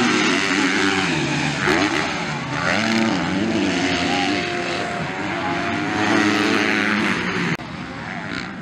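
Several 250cc motocross bikes racing past, their engines revving hard, the pitch climbing and falling with throttle and gear changes. The sound drops abruptly to a quieter, more distant engine note near the end.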